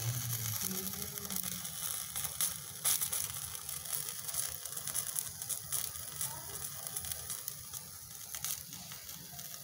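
Whole eggplant roasting directly on a gas-stove burner flame: a steady hiss from the burner with scattered crackles and sizzling from the oiled skin as it chars.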